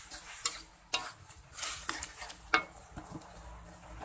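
Metal spatula scraping and knocking against a metal wok while mushrooms are stirred in their juices: a run of short scrapes and clinks, the sharpest about two and a half seconds in.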